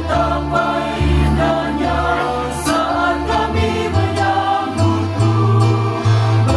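Mixed choir singing in parts with electronic keyboard accompaniment, the keyboard holding low bass notes that change about every second.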